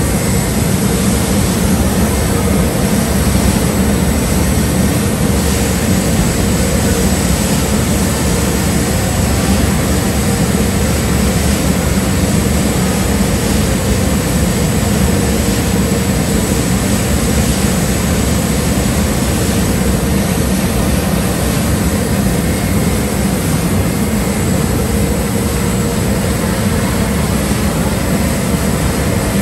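Steady, loud whir of coffee roasting plant machinery: fans and blowers running air through the roaster's ducts and pipes.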